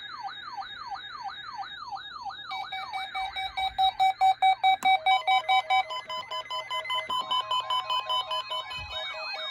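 Several NOAA weather alert radios sounding their alarms together, set off by the weekly test's warning alarm tone. A rising and falling siren warble of about three sweeps a second is joined, about two and a half seconds in, by layered steady and pulsing alarm beeps. The fast loud pulsing is strongest from about three and a half to six seconds.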